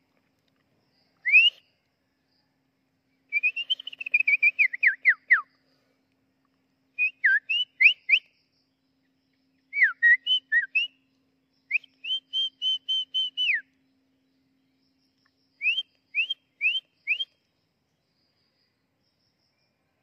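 A person whistling short bird-like phrases in about six bursts with pauses, the notes sliding up and down, the last burst four quick rising notes, to call out a nesting drongo.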